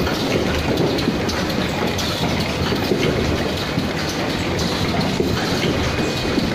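CY XD8001 automatic cup-mask machine line running: a steady, dense mechanical clatter made up of many small clicks and knocks, with no break or change.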